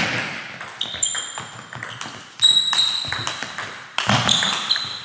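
Table tennis rally: the ball is hit back and forth, a quick run of sharp clicks off bats and table, some of them ringing briefly in the hall. The loudest hits come about halfway and near the end.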